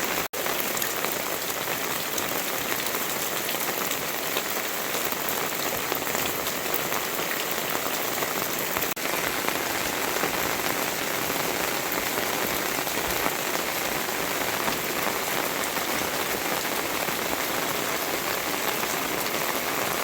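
Steady rain falling, an even hiss with many fine drop ticks through it. The sound cuts out for an instant just after the start and dips briefly about nine seconds in.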